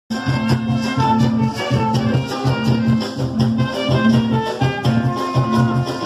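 Live carimbó band playing an instrumental passage: a steady dance beat on hollow-log curimbó drums with shaken rattles and a repeating low note pattern underneath.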